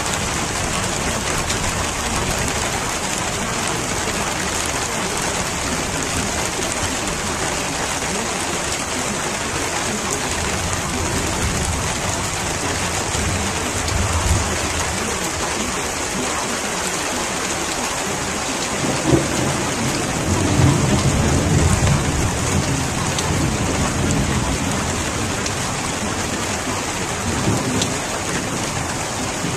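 Steady rain, an even hiss throughout, with low rolls of thunder: a brief one about halfway and a longer one about two-thirds of the way in, and a short rumble near the end.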